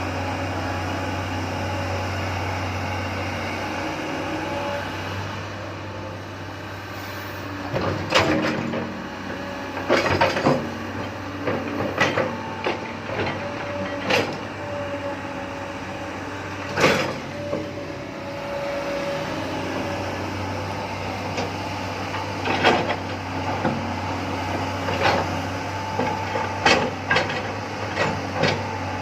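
Komatsu PC300 hydraulic excavator's diesel engine running steadily with a held drone, with a string of sharp knocks and clanks over it; the loudest come about eight, ten and seventeen seconds in.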